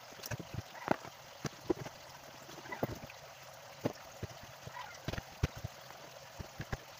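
Plastic opening pick prying the plastic back cover off a Samsung Galaxy A12: a string of small, irregular clicks and taps as the cover is unclipped around its edge.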